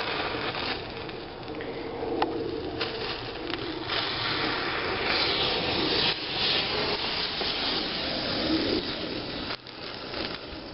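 A pile of burning match heads and consumer fireworks: a steady rushing hiss with scattered sharp pops, easing off a little near the end.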